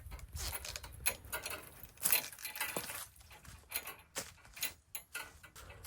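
Irregular short sniffs, breaths and rustles of a man choking up with emotion and trying to compose himself.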